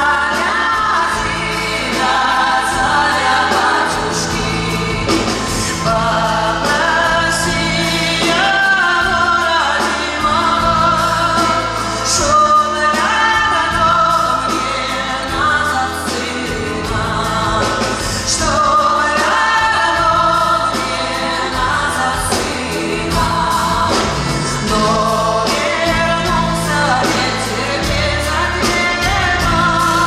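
A woman singing a Russian song live into a microphone, backed by a small band of accordion, acoustic guitar and percussion over sustained low notes.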